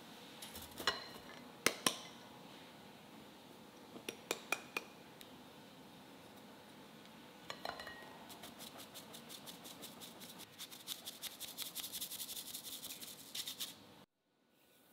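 A ceramic cup clinking a few times against a plastic-rimmed mesh sieve and glass mixing bowl while flour is tipped in, then rapid light tapping, about five taps a second, as the sieve is shaken to sift the flour through. The tapping stops suddenly near the end.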